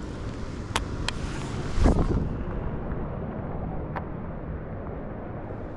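Wind buffeting the microphone with a steady low rumble and a louder gust about two seconds in, with a few sharp ticks scattered through it.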